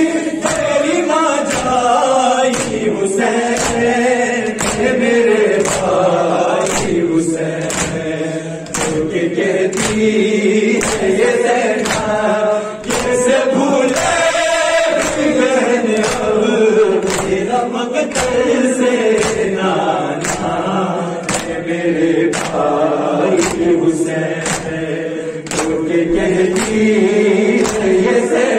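Urdu noha chanted by a male reciter on a microphone with a group of men's voices, in a slow, mournful melody. It is kept in time by a steady beat of sharp hand slaps on the chest (matam), a little faster than one a second.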